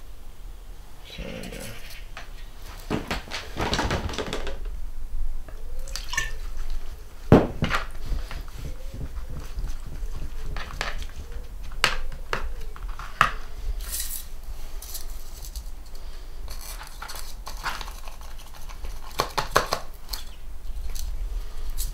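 Paintbrush stirring and scraping wet paint in a plastic palette tray, with scattered clicks and knocks of handling, the sharpest about seven seconds in.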